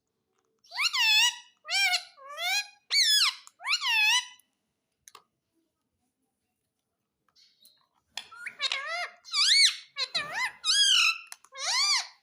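A talking parrot's high, squeaky voice uttering short mimicked word-like syllables. There is a quick run of about five, then a pause of about four seconds, then another run of about six near the end.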